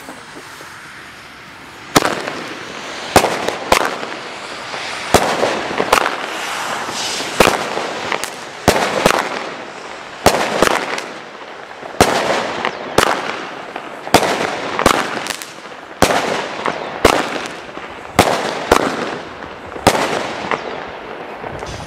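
Small Lesli 'Gold' consumer firework battery firing: after about two seconds of hiss, it launches roughly twenty shots at about one a second, each bursting with a sparkling crackle.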